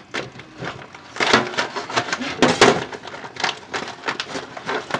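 A plastic package of frozen mussels being handled: crinkling and crackling in a run of sharp rustles, loudest about a second in and again past the middle.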